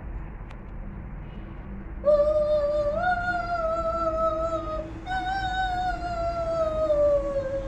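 A young child's voice imitating the blast of a conch shell: two long held tones, the first starting about two seconds in, the second just after five seconds and sliding slowly down in pitch.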